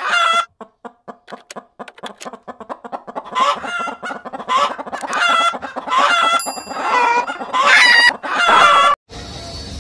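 Chicken clucking and cackling: a quick run of short clucks, then a string of longer squawks that rise and fall in pitch. A brief bright chime sounds about six and a half seconds in.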